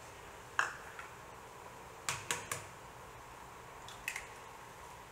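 An egg tapped against the rim of a plastic cup to crack it: three quick sharp taps about two seconds in, with single light clicks about half a second in and about four seconds in.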